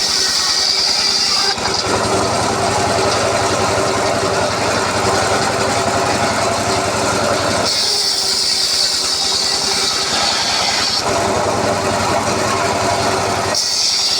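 Circular sawmill running on teak. The sound switches abruptly several times between a steady high whine and a rougher, lower din.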